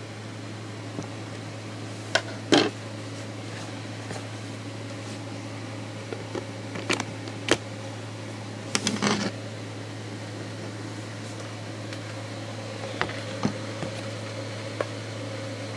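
Scattered clicks and knocks from clear plastic storage tubs used as tarantula enclosures being handled, the loudest about two and a half seconds in and a cluster around nine seconds, over a steady low hum.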